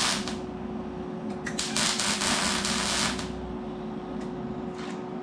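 Electric arc welding: the arc crackles and sizzles in two short bursts, the second about a second and a half in and lasting about a second and a half, like tack welds, over a faint steady hum.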